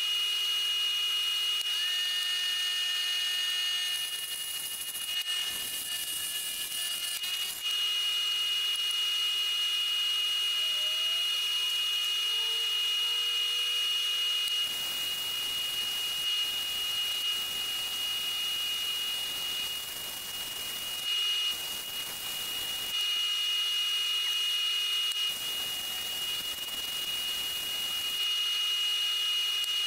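Wood lathe running with a steady high whine, while sandpaper held by hand is pressed against the spinning wooden workpiece at intervals, adding a rough hiss that comes and goes.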